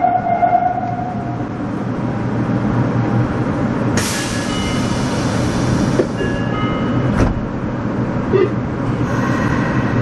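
Meijo Line subway train (Nagoya Municipal Subway 2000 series) standing at a station platform, heard from the cab: a steady hum from the stopped train. About four seconds in a loud hiss starts suddenly and lasts a couple of seconds, followed by a few sharp clicks, with a fainter hiss near the end.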